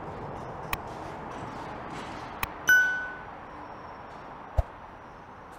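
A single bright ding rings out about three seconds in and fades over about half a second. A few sharp clicks come around it, and a soft knock near the end.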